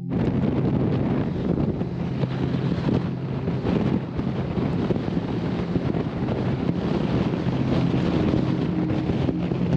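Strong wind buffeting the microphone, a loud rough rushing that starts abruptly, with faint background music underneath.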